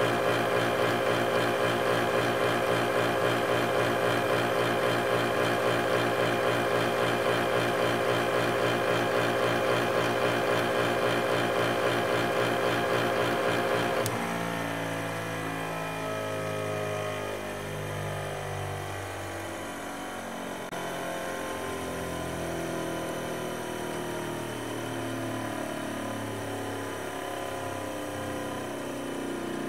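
Panasonic MJ-W176P juicer/blender motor running steadily while juicing slime, a high whine with a slight regular pulsing. About halfway through it cuts off abruptly and background music takes over.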